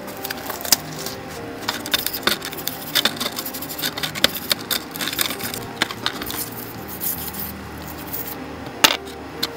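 Toothbrush scrubbing small steel bicycle bearing parts in a tray of solvent, with frequent sharp metal clinks and knocks as the parts are handled and tapped against each other and the tray. The loudest clink comes near the end.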